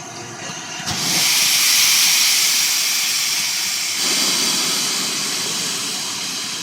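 Steam locomotive letting off steam: a loud hiss starts suddenly about a second in and carries on, changing in tone about four seconds in.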